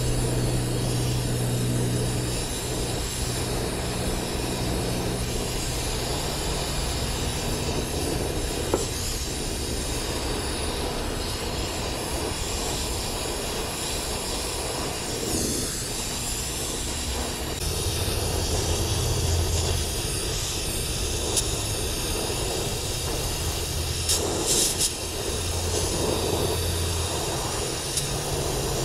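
Steady hissing of gas flowing, with a low engine-like drone underneath that fades out and comes back twice.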